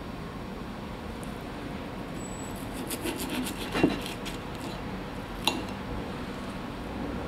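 Table knife sawing through a seared pork steak on a ceramic plate: a quick run of rasping strokes starting about three seconds in, with a sharp click of cutlery just before four seconds and another about five and a half seconds in.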